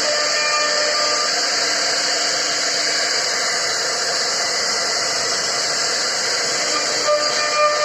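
CNC router spindle running steadily as it cuts into a wooden board: a constant high whir and hiss, with a brief louder tone about seven seconds in.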